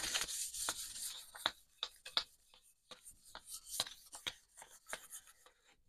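A sanding disc rubbing hard wax oil into a wooden hammer handle. There is a dense run of scuffing strokes at first, then scattered short rubs and small knocks.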